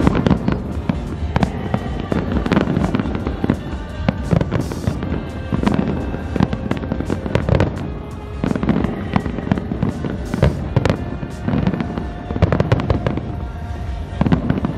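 Aerial firework shells bursting in a rapid, continuous barrage of bangs and crackles, with music playing alongside.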